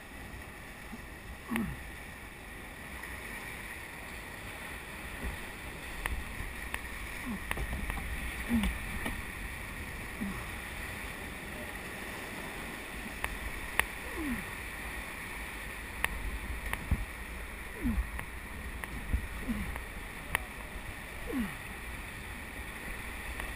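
Whitewater rapids rushing steadily around a raft, with scattered sharp knocks and short gurgling splashes against the boat.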